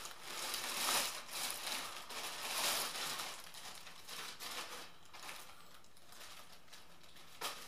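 Packaging crinkling and rustling as the next haul item is handled and unwrapped, busiest in the first three seconds and then quieter, with a sharp click near the end.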